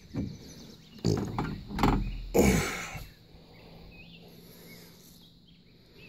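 A school-bus roof escape hatch being unlatched and pushed open: a few knocks and scraping sounds over about two seconds, then quiet.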